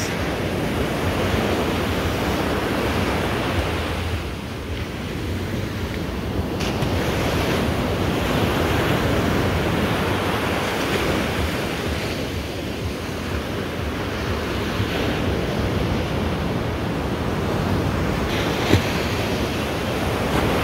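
Ocean surf washing on a sandy beach, with wind buffeting the phone's microphone; the rushing noise swells and eases in waves. A single small knock sounds near the end.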